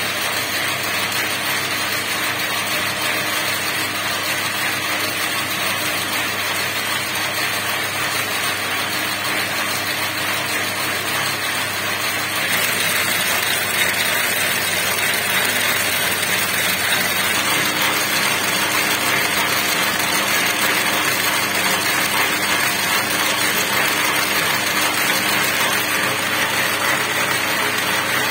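Braiding machine running steadily, its silk bobbins circling as it braids a sfifa cord. The running noise grows a little louder about twelve seconds in.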